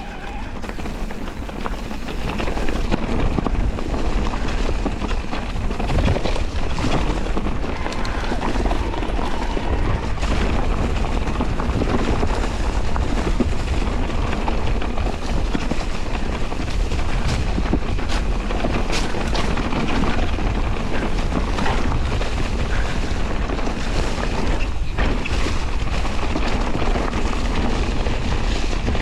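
Wind buffeting the microphone over tyre noise and rattling knocks from an electric mountain bike riding a rough dirt trail, getting louder over the first few seconds and then staying steady.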